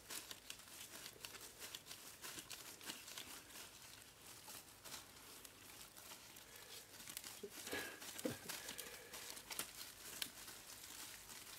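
Faint crinkling and rustling of plastic disposable gloves and the thin foil electrode and polymer separator layers of a discharged lipo cell being peeled apart, many small crackles, a little louder about eight seconds in.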